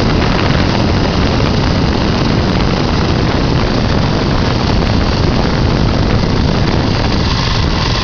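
Motorcycle engine running steadily close by, heard under a constant rush of wind noise on the microphone.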